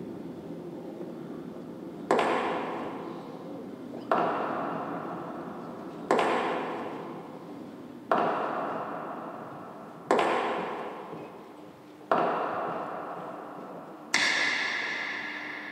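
A series of seven sharp percussive hits from a performance backing track, evenly about two seconds apart, each ringing and fading before the next; the last is brighter, with a steady high ringing tone in it.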